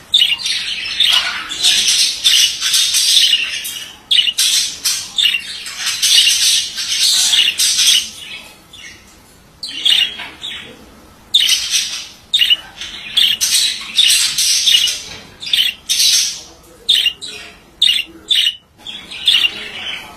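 Male budgerigar warbling and chattering in rapid runs of high squawks and chirps, with a brief lull about nine seconds in.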